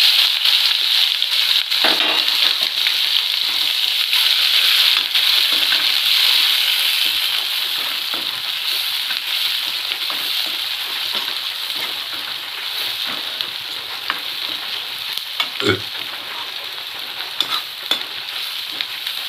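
Sliced onions sizzling in hot oil and cumin seeds in a steel kadai, stirred with a spatula. The sizzle starts suddenly and loud as the onions drop in, then slowly dies down.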